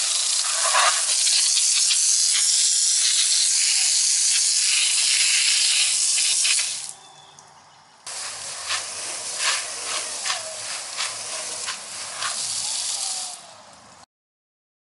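Garden hose sweeper nozzle spraying water against a brick wall: a loud, steady hiss that stops about seven seconds in. A second later it starts again, quieter and uneven with many small spattering clicks, then fades and cuts off just before the end.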